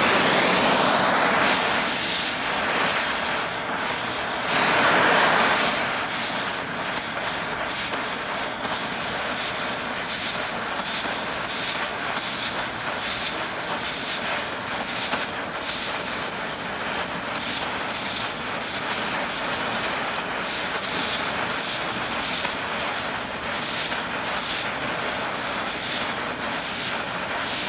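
Oxy-fuel torch flame hissing steadily as it heats a small piece of steel. The hiss starts at the beginning and swells briefly about five seconds in.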